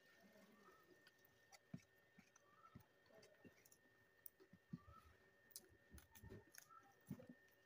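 Faint eating sounds: scattered soft clicks of chewing, with a faint steady electrical whine beneath.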